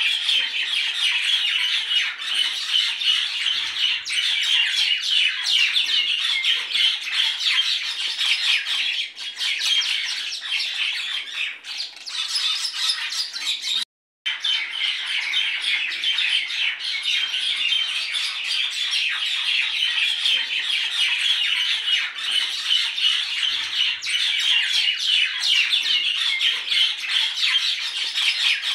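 Dense, continuous chattering and squawking of a flock of birds, broken by a brief cut to silence about halfway through before resuming.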